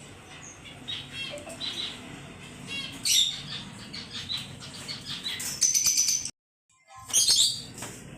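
Pet birds chirping and calling, with louder, sharper calls about three seconds in and again near six seconds, then the sound cuts out for under a second before the chirping resumes.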